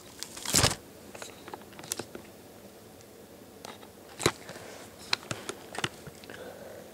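A handheld camera set down on a carpeted floor with a dull thump, followed by scattered sharp clicks and light taps as tools and a cordless drill are handled close by.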